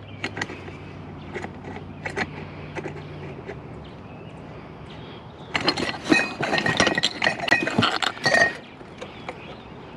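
Glass and metal parts of a light fixture clinking and rattling as it is handled, with scattered clicks at first and then a dense run of ringing clinks about five and a half seconds in, lasting some three seconds.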